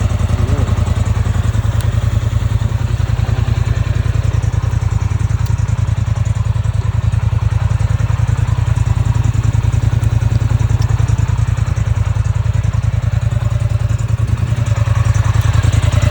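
ATV engine idling steadily, a low even pulsing that does not change.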